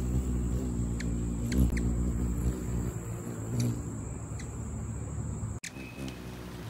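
Ruby-throated hummingbird's wings humming as it hovers close at a nectar feeder. The hum wavers in pitch as the bird shifts, with a few short, high squeaks over it. The sound breaks off abruptly near the end.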